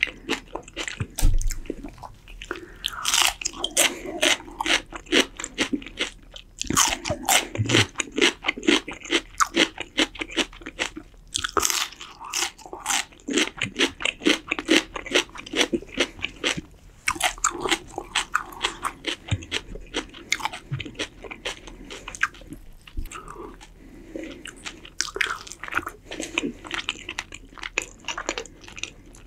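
A person chewing and biting crisp, crunchy food, with dense crackly crunches coming in bouts and brief pauses between them.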